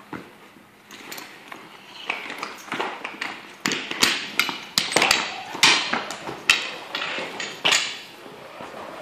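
Irregular knocks, clanks and rattles of a firefighter's boots, air-pack gear and fire-hose couplings on a concrete floor as the hose is carried and dragged, growing louder about two seconds in.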